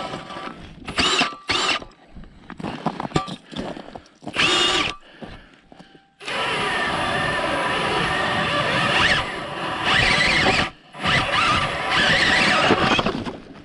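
Battery-powered ice auger drilling through lake ice: a few short bursts in the first five seconds, then steady drilling from about six seconds in, with a brief stop a little before eleven seconds.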